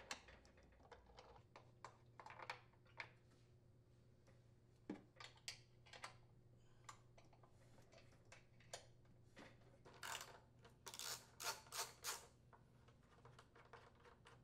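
Faint, scattered clicks and light taps of a 3/8-inch socket driver working the blower housing mounting bolts loose, with a quicker run of clicks near the end.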